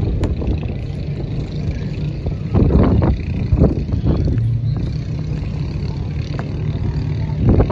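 Wind rumbling on the microphone, with clusters of sharp clacks and knocks about two and a half to four seconds in and again near the end: drill rifles being handled and boots striking the pavement in a silent rifle drill routine.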